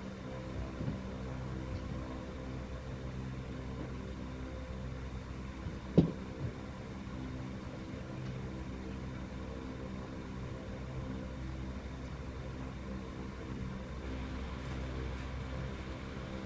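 A steady mechanical hum, with one sharp knock about six seconds in.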